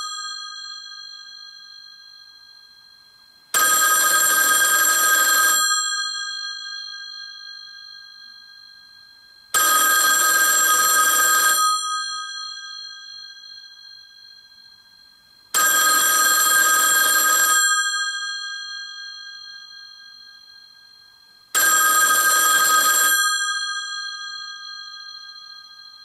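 Three Bell System rotary dial phones ringing together, their bells ringing in bursts of about two seconds every six seconds, four rings in all. The bell tones hang on and fade away between rings.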